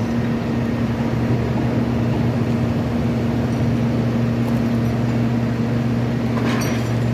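Engine of a railroad track-repair work machine running steadily, a low even hum, with a faint click near the end.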